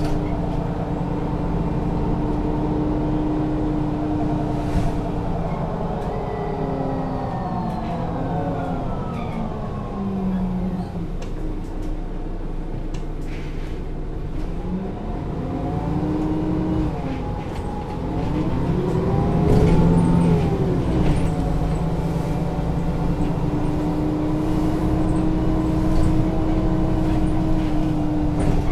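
Interior of a 2002 Mercedes-Benz O 530 G Citaro articulated bus on the move: diesel engine and Voith automatic gearbox running. A whine glides down in pitch about a quarter of the way in, then climbs and falls again as the bus picks up speed, settling to a steady hum near the end.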